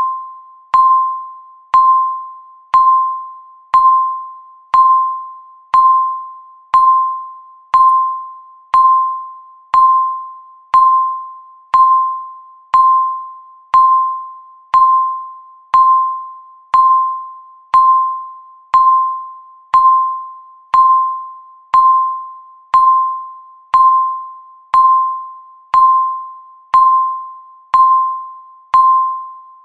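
Countdown timer's electronic beep, once a second: a single tone that starts sharply and fades out before the next, ticking off each second of the countdown.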